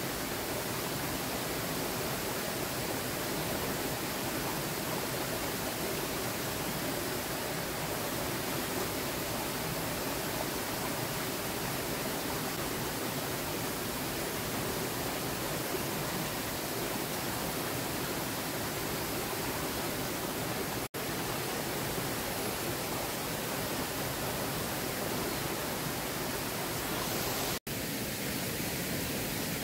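Steady rushing of stream water spilling over rocks, an even hiss with no separate events; it breaks off for an instant twice in the last third.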